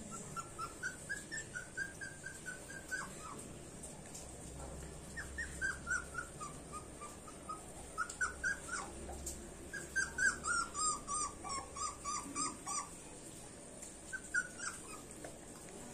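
Puppy crying: short, high whimpers in quick runs of about four or five a second, broken by pauses of a second or two.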